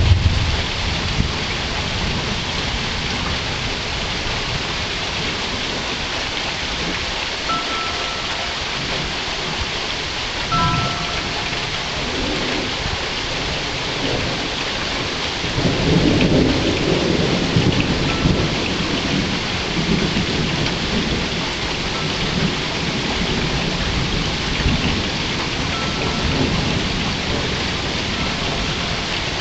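Steady rain falling in a thunderstorm, with rolls of thunder. One low rumble dies away in the first second, and another builds about halfway through and rolls on for several seconds before fading back into the rain.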